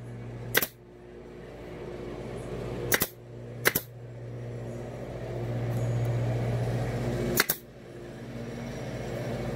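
Power staple gun firing staples through thick alligator-pattern upholstery vinyl into a wooden seat base: four sharp snaps, two of them close together about three seconds in, over a steady low hum.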